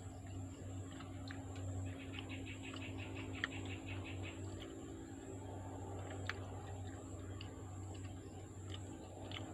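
Scattered light clicks and taps of a spoon and fingers on boiled balut eggs, cracking and peeling the shells, over a steady low hum. About two seconds in comes a short run of fast, even, high ticking.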